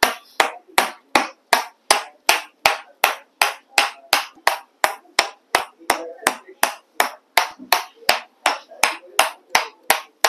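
A steady series of sharp percussive strikes on the body, close to three a second, from a hands-on muscle-release technique used to loosen large muscles and calm an irritated nerve.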